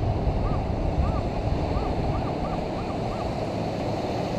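Surf and wind noise on the microphone, with a metal detector giving about seven short, faint beeps, each rising and falling in pitch, as its coil is swept over a mid-tone target in the freshly dug sand.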